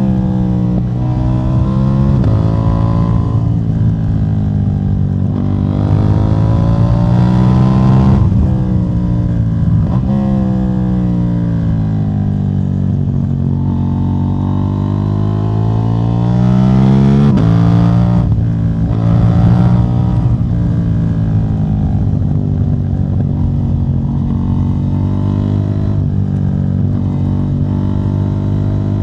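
KTM 790 Duke's parallel-twin engine running through a decat exhaust with the catalytic converter removed. The pitch climbs and falls over several seconds at a time, with sudden drops about 8 and 17 seconds in.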